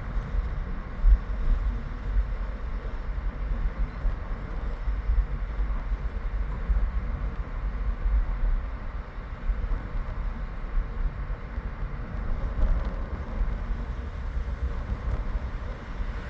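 Wind buffeting the microphone in uneven gusts over a steady rumbling noise.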